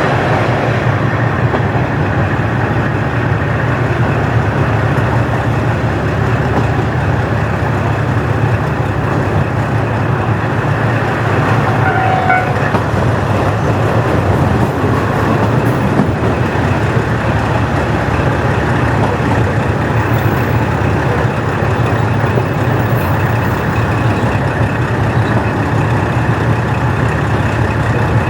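KiHa 40-series diesel railcar running, its original DMF15HSA diesel engine droning steadily under the rumble of wheels on rail.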